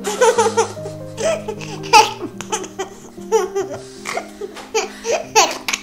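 A toddler laughing in a run of short, high-pitched bursts of giggles over soft background music with low held notes.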